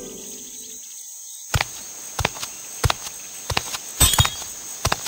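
Cartoon footstep sound effects: light, sharp steps about every two-thirds of a second, over a steady high chirring of crickets. A short musical note dies away in the first second.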